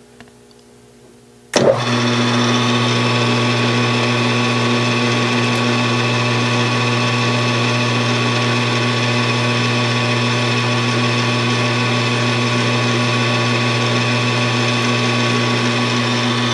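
Metal lathe switched on about a second and a half in with a click, then its motor and spindle running at a steady speed with a steady hum.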